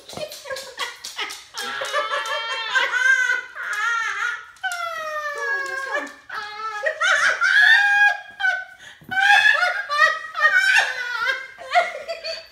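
A woman laughing hard in repeated high-pitched bursts, with one long falling laugh near the middle.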